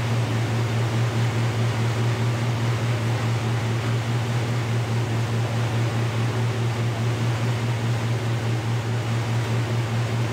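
A machine running steadily: a loud, even low hum over a hiss, unchanging throughout.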